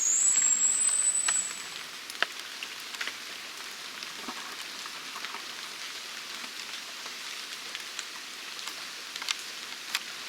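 Rain falling on leaves and undergrowth: a steady hiss with scattered drop ticks. A loud, high-pitched steady whine runs for the first second and a half, then cuts off.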